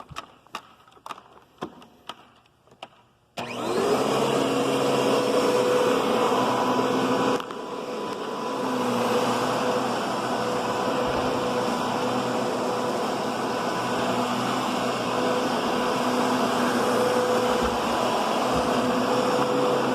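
A few sharp clicks, then a Kenmore Progressive vacuum cleaner switches on about three seconds in and runs with a steady whine. A few seconds later it steps down to a quieter, lower suction setting.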